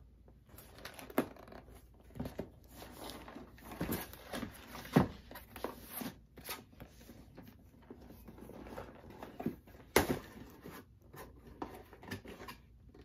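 Cardboard box being handled and opened: scattered taps and scrapes of hands on the box and short tearing sounds, the loudest about a second, five and ten seconds in.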